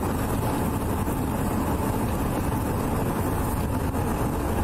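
Steady road and engine noise inside a car's cabin while driving, heard through a body-worn camera.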